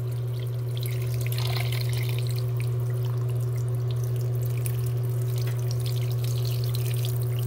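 Beef broth poured from a can into a slow cooker over chunks of meat: a steady splashing trickle of liquid, over a constant low hum.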